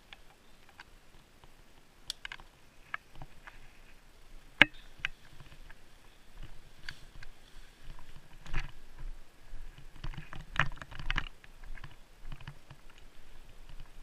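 Bicycle rattling and clicking as it is ridden, picked up by a camera mounted on the bike. Irregular sharp clicks and knocks come through, the strongest single click about four and a half seconds in, with a busier patch of rattling and a low rumble in the second half as it gets under way on the road.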